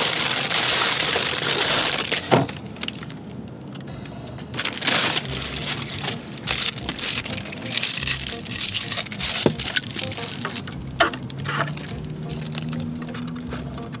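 Plastic takeout bags and wrappers crinkling and rustling as food and drink cups are unpacked, loudest at the start, followed by scattered sharp clicks and taps of packaging and a straw being handled.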